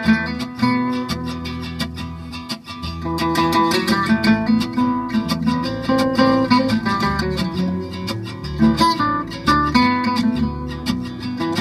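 Gypsy jazz band playing live: acoustic guitars, one strumming a steady beat under a picked melody line, with upright double bass.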